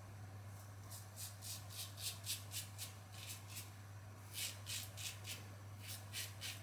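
Safety razor with a Polsilver Super Iridium blade scraping through stubble in short, quick strokes, about four a second, with a brief pause about halfway through. This is the rasp of the blade cutting whiskers on a final pass.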